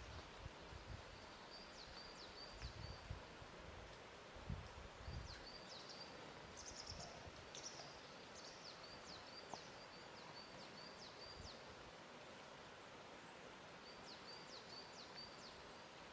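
Faint lake-shore ambience: a quiet steady hiss with soft, irregular low lapping of water, and a small bird giving bursts of high chirps and short trills several times.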